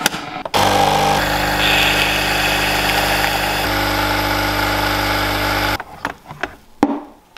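Philips Senseo coffee pod machine brewing: its pump runs with a steady hum as coffee streams into a mug, then stops about six seconds in. A few short knocks follow as the mug is handled.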